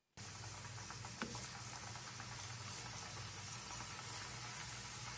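Pieces of mashed-potato and starch dough deep-frying in hot oil, a steady sizzle with one light tick about a second in.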